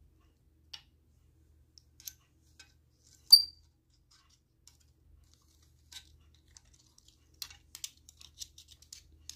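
Small plastic clicks and taps as a plastic microscope-slide box and its slides are handled on a tabletop. One sharper click comes about a third of the way in, and a quick run of light clicks near the end as the slides are taken out.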